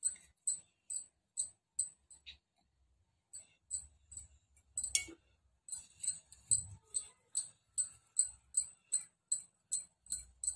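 Light, high-pitched metallic clicks, about two a second with two short breaks, from a hand marking coconut burfi rounds with a toothpick on a steel plate.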